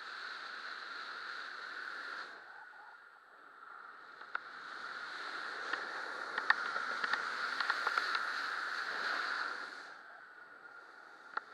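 Wind rushing over the camera microphone during a fast speedflying descent. It dips about two seconds in, then swells from about five seconds to nearly ten seconds, with a scatter of small clicks and taps in the louder stretch.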